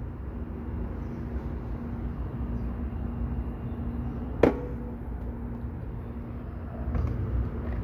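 Steady outdoor background rumble with a faint constant hum, and one sharp click about four and a half seconds in.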